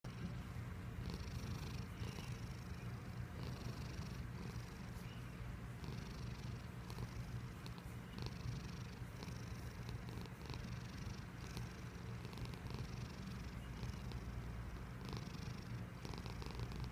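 Pet cat purring steadily: a continuous low rumble, with a breathy rasp on its breaths that comes back roughly once a second.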